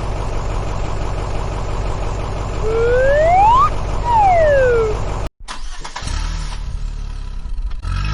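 A steady engine-like rumble with a tone that rises in pitch and then falls again midway through. About five seconds in it cuts off suddenly and a second, rougher engine rumble starts.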